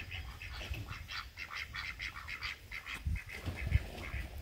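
A flock of farmyard poultry calling: a busy run of short, quick calls, several a second.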